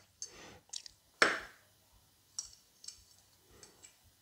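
Light clicks and taps of a metal camera baseplate being handled and turned over in the hands, with one louder knock about a second in.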